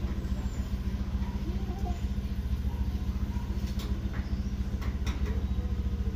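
An engine idling steadily, a low pulsing drone, with a few light clicks near the end from work on the aluminium screen door frame.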